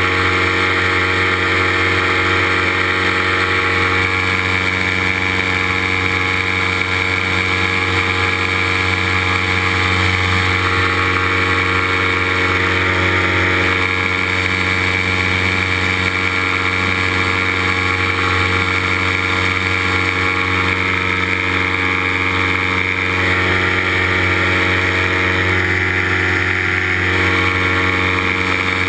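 Paramotor engine and propeller running steadily at cruise power in flight, heard up close from the pilot's harness, with an unchanging pitch.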